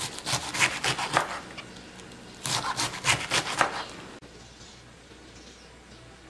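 Chef's knife slicing cabbage into thin strips on a wooden cutting board: two quick runs of about half a dozen cuts each, with a pause between, the blade striking the board on each stroke. The slicing stops about four seconds in.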